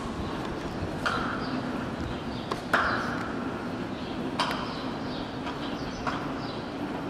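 Steady outdoor street background noise with about five sharp taps or clicks scattered irregularly through it.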